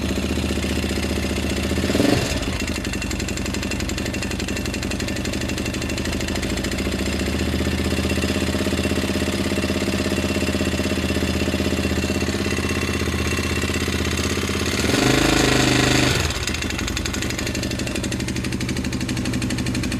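Honda TRX400EX quad's single-cylinder four-stroke engine idling with a knocking noise, blipped briefly about two seconds in and revved for about a second and a half near the three-quarter mark. The knock comes from a freshly rebuilt engine, and the owner suspects damaged main bearings, perhaps from dirt past the air filter.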